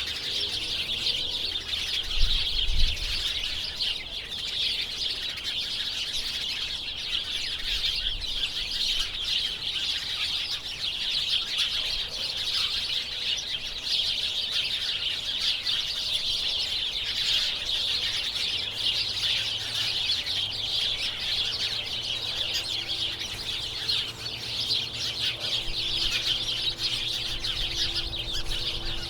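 A large flock of small birds chirping all at once in a dense, continuous chorus of overlapping chirps and tweets. A couple of brief low thumps come about two to three seconds in.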